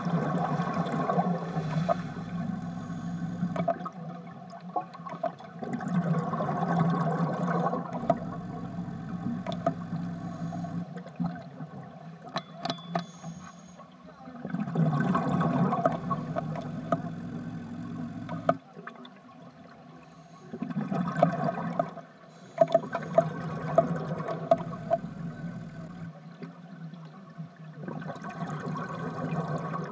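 Scuba exhaust bubbles heard underwater: about six bursts of bubbling, each a couple of seconds long, coming at irregular gaps of a few seconds.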